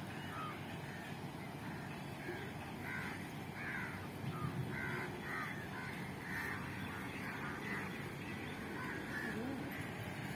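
Birds calling over and over in short calls, a few each second at times.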